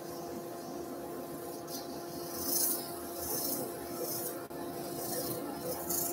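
Abrasive paper hissing against a sycamore plate turning on a wood lathe, in several short sanding strokes, over the steady hum of the running lathe.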